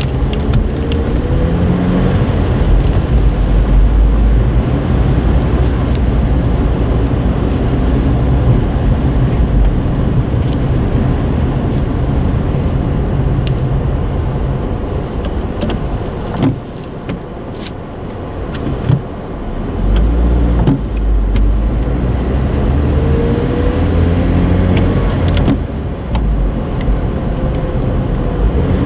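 A car driving, with a steady low engine and road rumble; the engine note dips for a few seconds past the middle, then rises as it speeds up again near the end.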